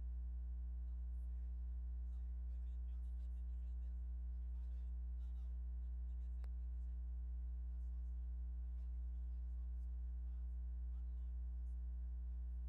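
Steady electrical mains hum with many overtones on the audio feed, with faint indistinct wavering sounds under it and one small click midway.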